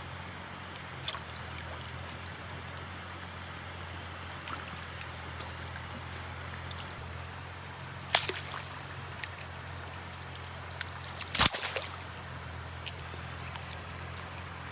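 Water sloshing and splashing during net fishing, with two sharp splashes about eight and eleven and a half seconds in, the second the loudest, over a steady low engine hum.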